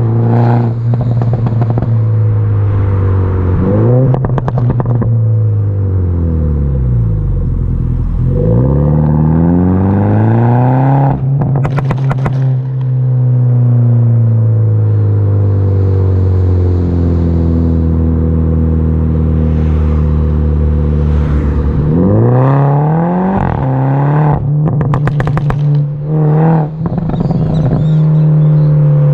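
Mini Cooper S F56's 2.0-litre turbocharged four-cylinder, with a straight-pipe exhaust, driven through the gears: the exhaust note rises and falls repeatedly as it accelerates and lifts off. Sharp pops and crackles come out of the exhaust on the overrun, clustered a little past the first third and again near the end.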